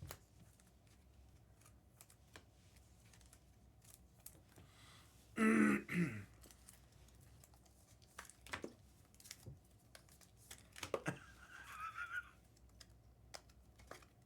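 Scattered light clicks and taps at an uneven pace, with one short voice sound about five and a half seconds in.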